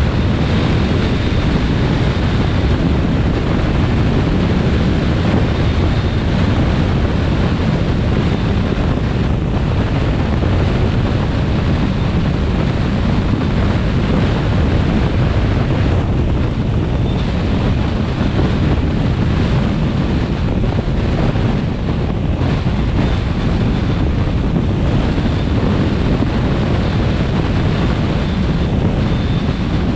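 Steady wind rush buffeting the microphone, mixed with the road and tyre noise of a vehicle driving along a highway.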